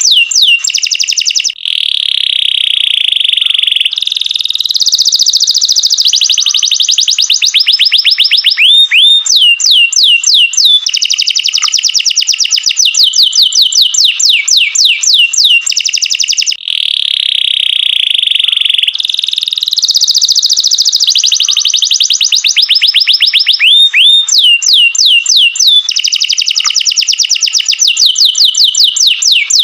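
Domestic canary singing a long, continuous, loud song: rapid trills of fast repeated notes alternating with held rolling tones and quick sweeping chirps, broken only by two short pauses.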